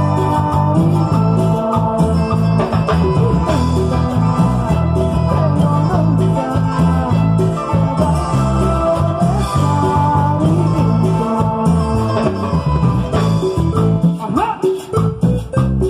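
Live cumbia band playing: electric bass and keyboards carry a steady groove under a wavering lead melody. About two seconds before the end the full sound breaks up into short separate hits.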